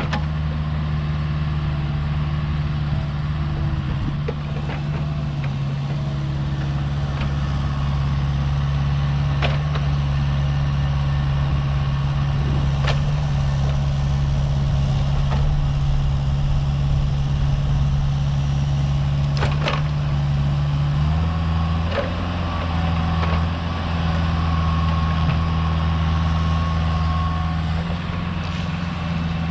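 Diesel engine of a Cat 299D2 compact track loader (skid steer) running steadily under work. Its note steps up slightly about two-thirds of the way through, and a few faint clicks sound over it.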